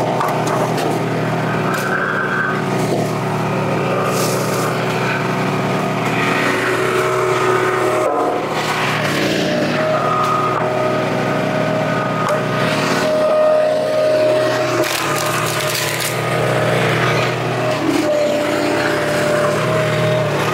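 Wolfe Ridge 35 HO log splitter's engine running steadily, its note firming up as the ram works under load while ash rounds are split. A few sharp cracks and crunches of splitting wood break through it.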